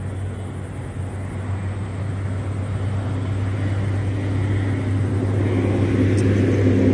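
Low, steady engine drone that grows gradually louder, with a few higher steady tones joining it in the second half.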